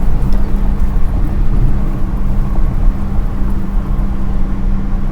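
Steady road and engine noise inside a moving car: a constant low rumble with a steady hum.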